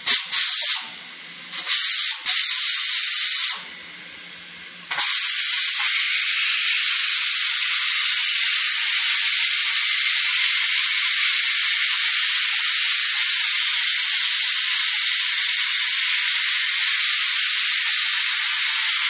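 Pressure cooker's valve venting steam: a few short spurts of hiss in the first seconds, then from about five seconds in a steady, loud hiss as the cooker runs under pressure.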